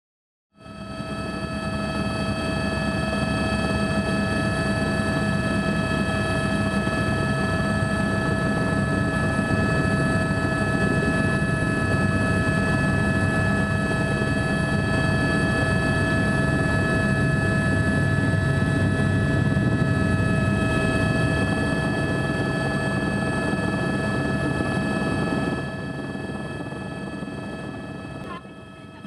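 Helicopter running steadily: a dense low rumble with a steady high whine above it. It fades in about half a second in and drops somewhat in level near the end.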